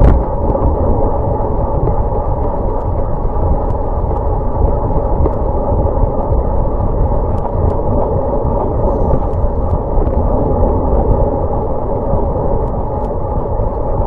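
Wind rushing over a bike-mounted camera's microphone together with tyre and road rumble from a road bicycle riding along, a steady noisy hum with a few faint ticks. A brief thump comes right at the start.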